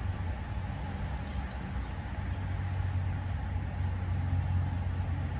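Car engine idling: a steady low hum.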